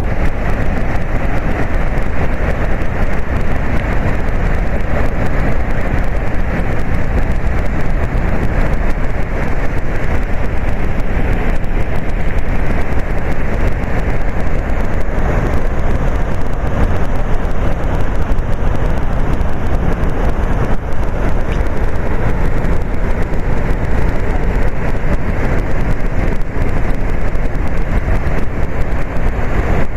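Water pouring over Niagara's Horseshoe Falls: a loud, steady, even rush with no breaks.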